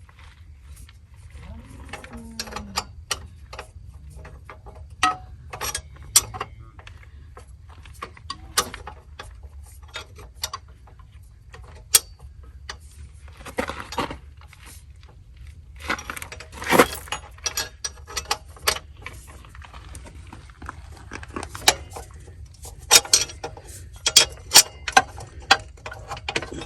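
Hand tools on metal: irregular clicks of a ratchet wrench and clinks of sockets and bolts while the 18 mm exhaust bolts are snugged up.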